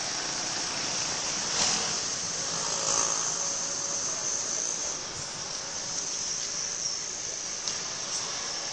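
Steady high-pitched insect chorus, with a few brief rustles of a plastic bag being handled.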